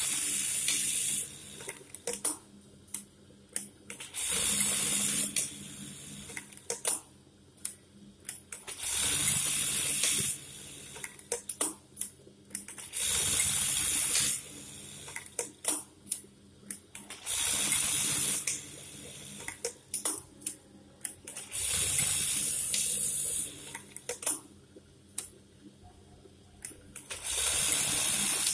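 Brother 814-2 industrial buttonhole sewing machine sewing buttonholes one after another: seven short runs of fast stitching, each about a second and a half long, coming about every four seconds, with sharp mechanical clicks in the pauses between them.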